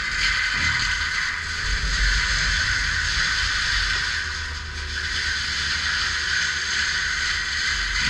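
Caterpillar 299D3 compact track loader working: its diesel engine and hydraulics give a steady deep rumble under a high, hissing whine, easing off briefly about halfway through.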